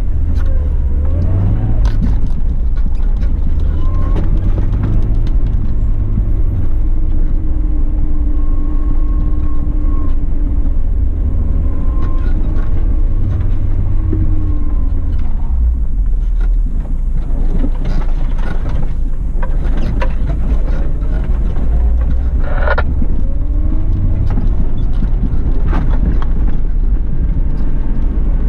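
2006 Suzuki Grand Vitara 2.0's four-cylinder petrol engine running off-road, its pitch rising and falling with the throttle over a steady low rumble, with a few knocks scattered through.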